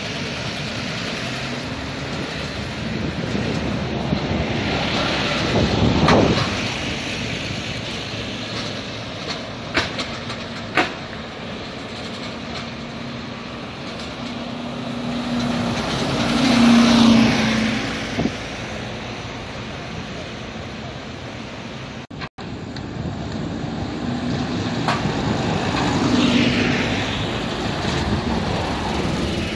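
Double-decker diesel buses pulling past close by in city traffic, engine noise swelling and fading three times, the loudest pass-by carrying a strong low engine hum. Steady traffic noise throughout, broken by a brief dropout about two-thirds in.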